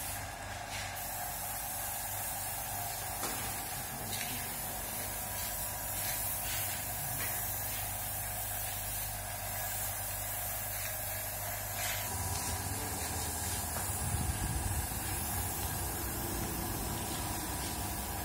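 Compressed-air paint spray gun hissing steadily as paint is sprayed, over a steady low hum that grows rougher about two-thirds of the way through.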